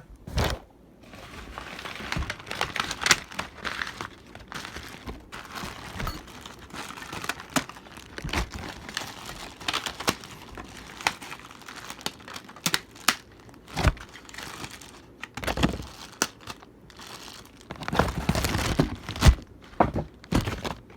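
Ceiling fan packaging being handled and unpacked: crinkling and rustling with scattered knocks and clicks throughout.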